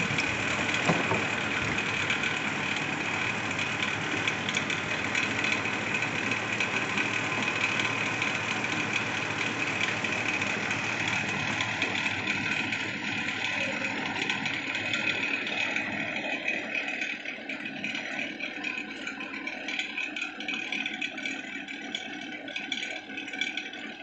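Steady machine hum with a high whine in it, with light metallic handling clicks and rattles as waveguide parts of a microwave test bench are worked by hand. The hum thins out about two-thirds of the way through.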